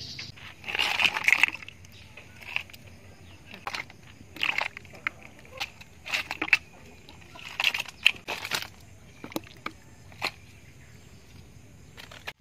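Live eels splashing and thrashing in a plastic bucket of shallow water as they are shaken out of woven bamboo traps, in irregular short bursts.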